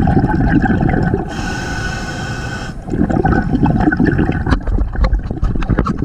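Scuba diver breathing through a regulator, heard underwater: exhaled bubbles gurgling past the microphone, then a steady hiss of inhalation about a second in that lasts about a second and a half, then exhaled bubbles again.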